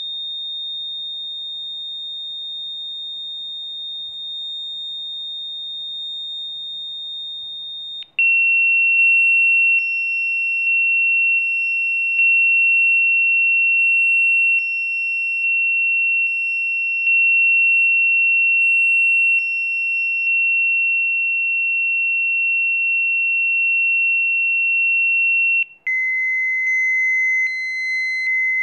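Rife frequency tones: steady, high-pitched pure electronic tones held one after another. One tone stops about eight seconds in and is replaced by a lower one, which gives way to a still lower tone near the end.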